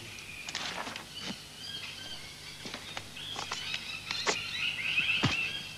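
Birds calling in the forest: runs of short, high chirps that grow busier in the second half. A few sharp knocks and rustles are scattered through, from the rope and branches being handled.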